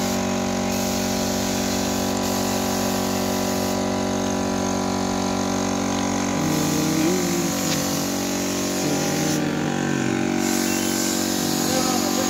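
Air compressor running steadily under the hiss of a gravity-feed paint spray gun spraying finish onto a wooden chair; the hiss comes and goes several times as the gun is triggered.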